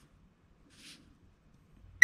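Near silence, with one faint, short swish about a second in as a hand shifts a ruler over a sheet of paper on a cutting mat.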